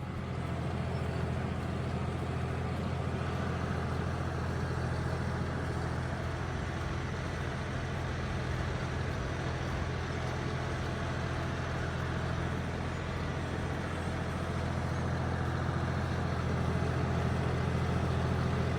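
Farm tractor engine running steadily at constant speed during field work, with a low, even hum that grows a little louder near the end.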